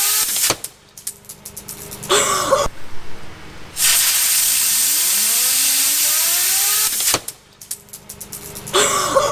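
Compressed air from an air compressor's blow nozzle hissing at a fidget spinner in several blasts, the longest about three seconds in the middle, with a whine that rises in pitch as the spinner speeds up.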